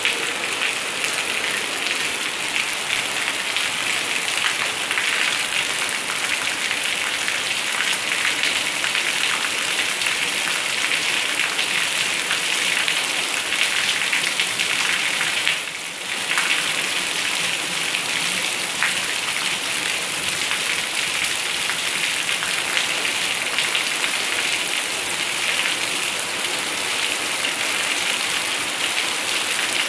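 Heavy rain falling steadily, with rainwater pouring from a roof drainpipe; the sound dips briefly about halfway through.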